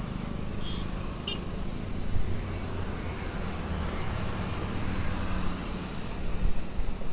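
Steady low rumble of passing vehicles, with one sharp click about a second in.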